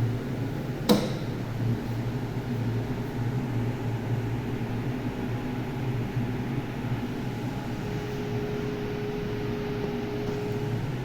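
Anesthesia machine running its self-test: a steady mechanical hum with a faint steady tone, and one sharp click about a second in.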